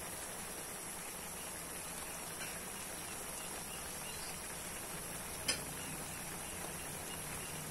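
Steady hiss of broth simmering in an aluminium wok over a gas burner, with one sharp click about five and a half seconds in as more carrot pieces go into the pan.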